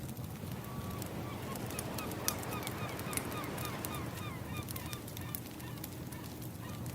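Ambient soundtrack of a crackling wood fire with a low wash of waves underneath. Over it, a bird gives a quick series of short, hooked calls, about three a second, from about a second in to near the end.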